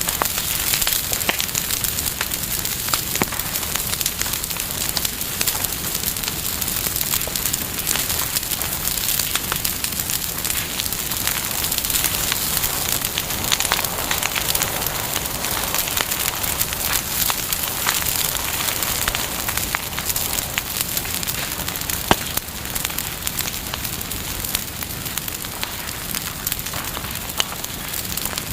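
Wood campfire burning, crackling and popping continuously, with one sharper pop about three-quarters of the way through.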